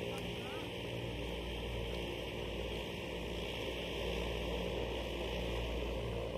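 Steady static-like hiss with a low hum underneath.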